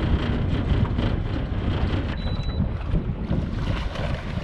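Wind buffeting the microphone on a small boat out on open water, a rough, gusting rumble with water sounds beneath it.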